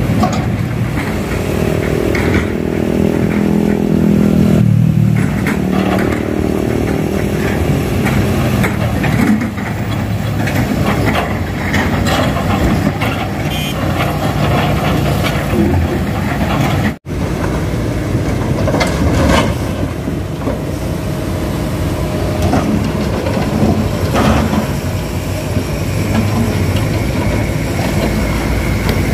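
Diesel engines of heavy earthmoving machinery running steadily under load, mainly hydraulic excavators at work, with a few sharp knocks in the second half. The sound cuts out for an instant partway through.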